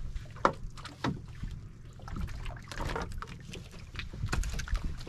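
Scattered knocks and clatter from a small outrigger boat as a caught fish is handled and unhooked, over a low rumble of wind and water around the hull.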